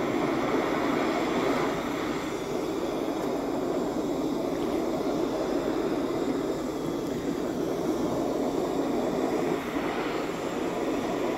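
Handheld gas torch burning steadily with a continuous rushing hiss as its flame is swept over a wooden board, scorching the surface.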